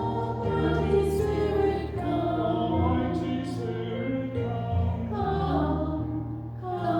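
A group of voices singing a hymn together, with sustained low bass notes in the accompaniment underneath.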